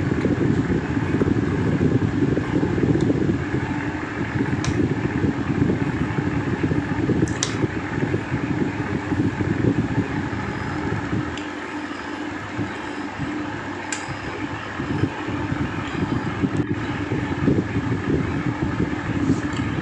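Electric box fan running steadily: a low rushing noise from its air blowing on the microphone, with a faint steady hum.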